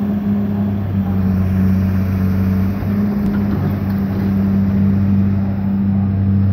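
Caterpillar 325LN tracked excavator's diesel engine running steadily while the machine raises its boom and swings.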